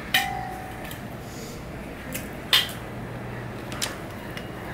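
Stainless steel dishes clinking: a clink near the start that rings briefly, a sharper one about two and a half seconds in, and a lighter one a second later.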